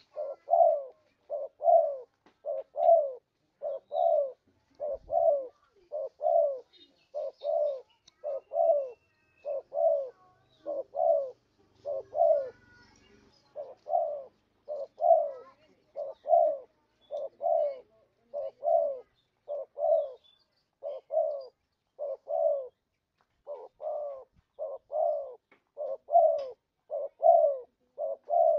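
Spotted dove cooing: a long run of short coos, about three every two seconds, with a brief pause about twelve seconds in. It is a lure call, played to draw in spotted doves.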